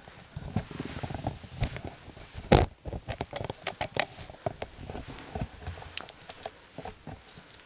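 Footsteps crunching through dry leaf litter and twigs, with small irregular crackles and rustles and one louder snap or knock about two and a half seconds in.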